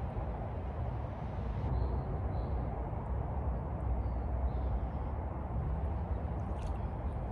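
Steady low outdoor background rumble by a lake, with a few faint high chirps about two and four seconds in.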